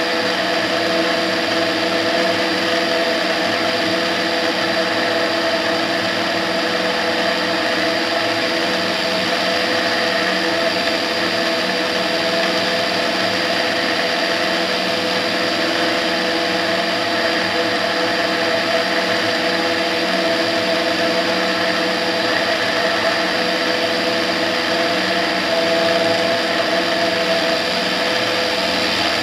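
Tetras ultralight aircraft's engine and propeller running at a steady pitch in flight, with the rush of air over an outside-mounted camera.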